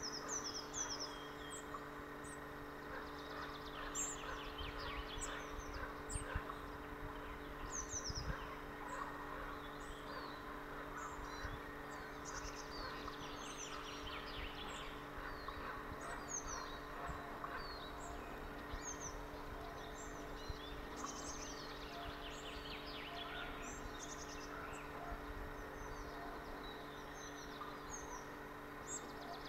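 Outdoor bird ambience: many short, high chirps, several a second and many falling in pitch, over a steady background hum.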